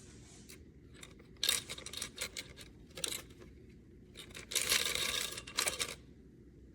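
Clicking, scraping and rustling from parts being handled, in three short clusters with the loudest near the end, after the blender motor has stopped.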